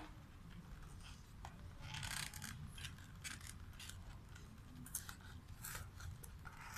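Cardboard box and its packing being handled: faint scattered rustling and scraping with small clicks as hands work inside the box to free the item, with a longer rustle about two seconds in.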